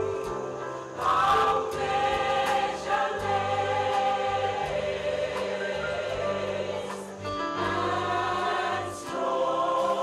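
A choir singing in several parts, holding long notes over a steady bass accompaniment whose notes change every second or two.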